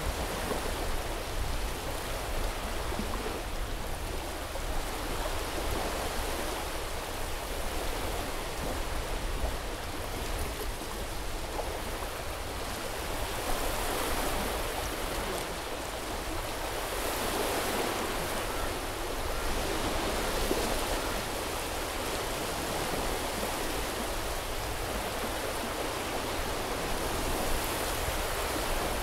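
Small sea waves washing onto a beach: a steady hiss of surf that swells a couple of times near the middle, over a low rumble.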